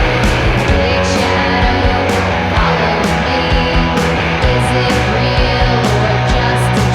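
Rock music: a band with guitar over a steady drum beat.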